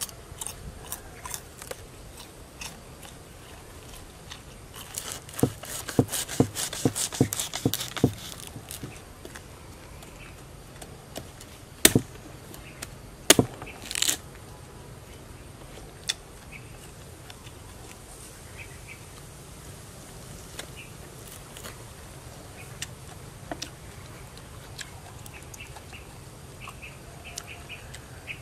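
Raw palm heart being chewed, a quick run of crisp crunches for about three seconds, then two sharp snaps and a short crackle as pieces of the fibrous palm heart are broken off by hand.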